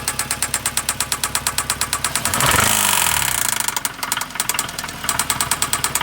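2009 Hyundai Sonata's 2.4-litre four-cylinder engine idling with a fast, even, loud hammering knock, revved briefly about two and a half seconds in and settling back. The owner suspects a worn connecting-rod bearing, with play found in cylinder 3.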